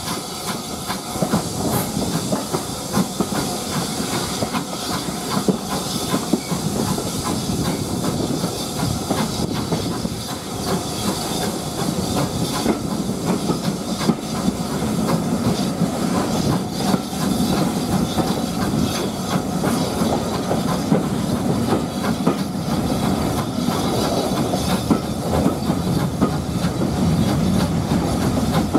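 A steam-hauled passenger train running, heard from an open carriage window: a steady rushing noise with many small clicks and knocks from the wheels and running gear, growing a little louder in the second half.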